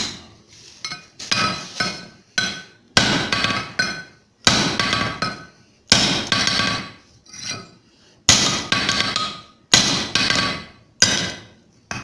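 Hand hammer blows on hot steel over an anvil while forging a steel bar into a punch. Heavy strikes come about once a second, with some lighter taps in between, and each leaves a brief metallic ring.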